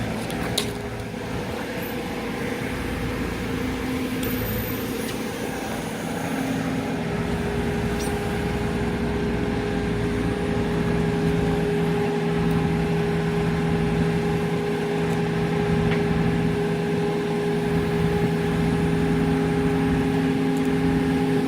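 Heavy diesel machinery running steadily with a continuous drone. Its tone shifts a little about halfway through, as the load on the engine changes.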